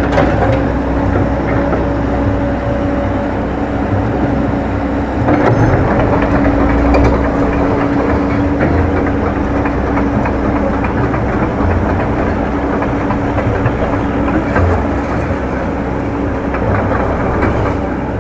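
Komatsu PC100-6 hydraulic excavator's diesel engine running under load with a steady hum, while the machine turns on its steel tracks with clanking and clatter. It gets louder about five seconds in.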